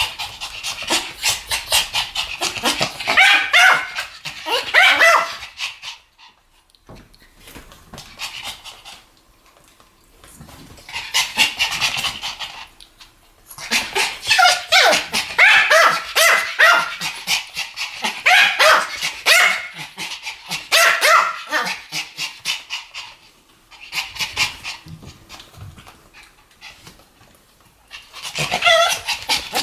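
Two Pomeranians barking together in runs of rapid yapping, several barks a second, broken by short pauses.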